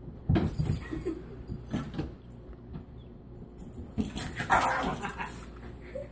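Dogs jumping and pawing at a wall in bursts, with claws scrabbling and knocking against it, mixed with dog whining.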